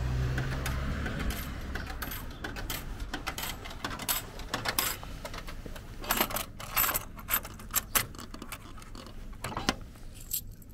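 Coins clinking in a vending machine's change-return cup as fingers gather them out: a run of sharp metallic clicks in small clusters over several seconds. A low hum sounds under the first second or so.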